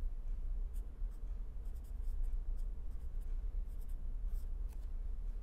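Pen scratching across paper in short strokes as an equation is written by hand, over a steady low hum.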